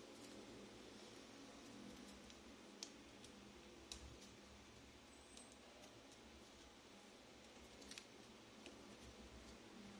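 Near silence: faint room hiss with a few soft, short clicks scattered through it.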